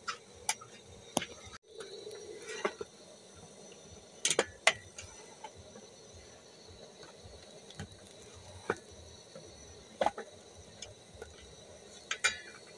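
Wooden cooking stick stirring and mashing stiff ugali dough in an aluminium pot, with sharp knocks of the stick against the pot every second or two at an irregular pace, a quick double knock about four and a half seconds in and another near the end.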